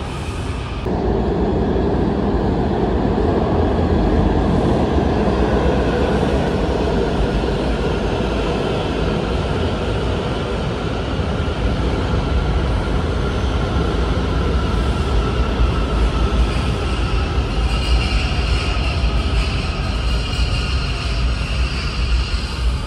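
Washington Metro 7000-series train moving through the underground station: a steady loud rumble of the cars on the rails. A high whine grows in from about three-quarters of the way through.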